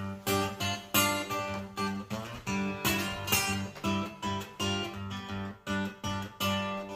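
Music: an acoustic guitar playing a blues introduction, with strummed and picked strokes in a steady rhythm, about two or three a second.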